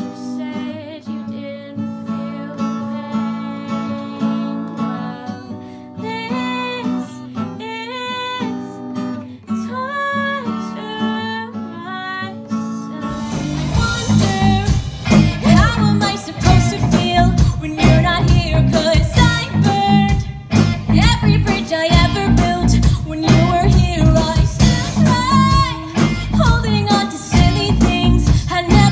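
A woman singing over her own strummed Yamaha steel-string acoustic guitar. About thirteen seconds in it cuts abruptly to a louder live rock band: electric guitars, bass and drums behind a female lead singer.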